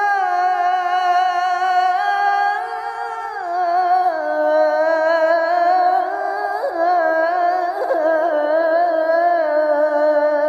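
A male muezzin's solo voice holding the long melisma of 'hayya ʿala ṣ-ṣalah' in the call to prayer (adhan), sung in maqam Nahawand with a Kurd passage. The held notes step downward in pitch, then break into wavering ornamented turns through the second half.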